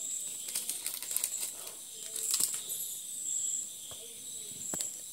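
Dry grains pattering from a torn plastic packet into a plastic bowl, with light crinkling of the packet, over a steady high-pitched tone.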